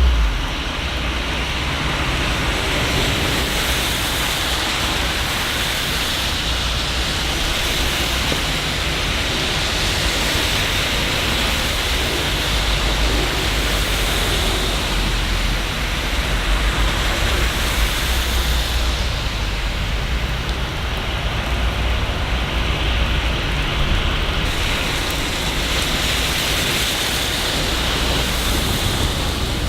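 Steady rain falling on city streets, an even hiss, with a low rumble underneath that swells and fades at times.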